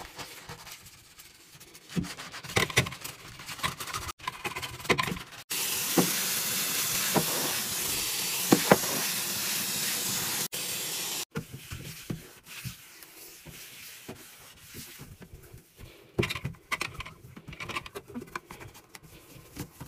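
Hand scrubbing and wiping a bathroom sink, counter and faucet: scattered rubbing and brushing strokes, broken in the middle by a steady hiss lasting about six seconds.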